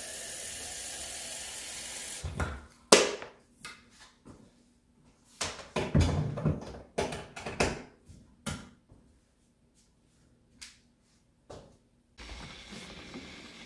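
Kitchen handling sounds while tea is being prepared: a string of knocks and clatters, as of cups, lids or containers being picked up and set down. A steady hiss runs at the start and comes back faintly near the end.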